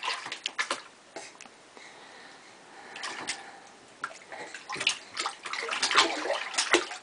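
A baby splashing and slapping bathwater with her hands in a plastic baby bathtub. The splashes come irregularly: a few in the first second, a couple about three seconds in, then a busier run of splashing near the end.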